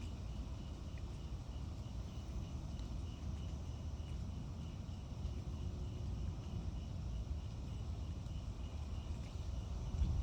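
Insects chirping in a steady, fast, even pulse, several chirps a second, over a steady low outdoor rumble.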